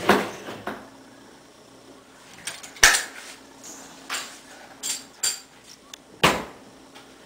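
Rifles being handled and set down off the counter: a series of sharp knocks and clunks, about eight in all, the loudest about three seconds in and another strong one about six seconds in.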